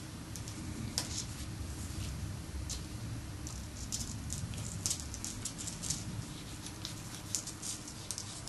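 Soft irregular scratching and small ticks of a length of wire being threaded down inside a squirrel's tail skin, the wire and fingers rubbing on skin and fur.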